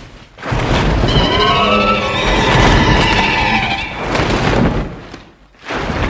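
King Ghidorah monster roar sound effect, 2001 GMK version: a wavering, screeching cry that starts about a second in and lasts about three seconds over heavy rumbling noise. Another short noisy blast comes near the end.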